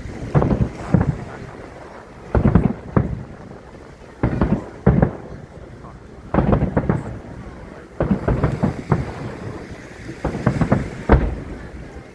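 Aerial fireworks shells bursting in quick clusters of several bangs, a new cluster about every two seconds.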